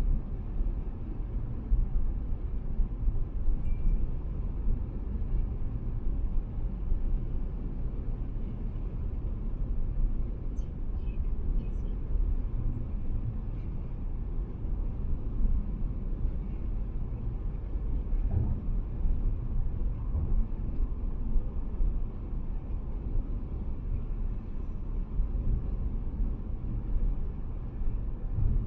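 Car driving at expressway speed: a steady low rumble of tyres on the road surface and the engine.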